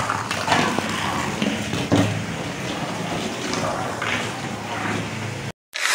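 Mini DC motor of a motorized Hot Wheels car whirring as the toy runs laps of a cardboard track. The plastic wheels rattle along the track with a knock about every second as the car hits the bends and walls. The sound cuts off suddenly near the end.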